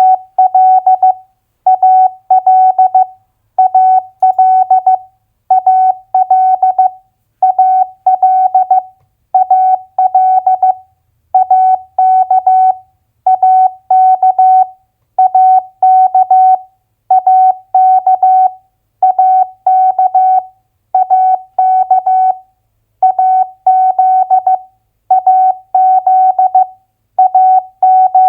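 Morse code sent as a keyed single-pitch tone at 15 words per minute: two-letter US state abbreviations, one short group of dits and dahs about every two seconds.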